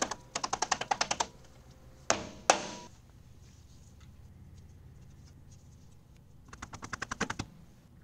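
Two runs of rapid metallic clicking, one at the start and one near the end, and two sharp metallic knocks with a short ring about two seconds in. These are hand tools working on the loader lift cylinder's lower pivot pin as the rod end is refitted.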